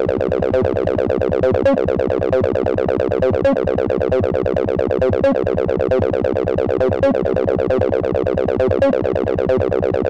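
Serum software synth patch imitating a Roland TB-303 playing an acid line: a resonant band-pass filter swept by an envelope, tube distortion, ping-pong delay and reverb. A short pattern repeats about every 1.8 seconds.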